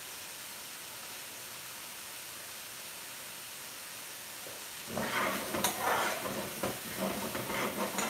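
Chicken Madras sizzling in an aluminium frying pan. About five seconds in, a steel ladle starts stirring it, scraping and clinking against the pan in irregular strokes.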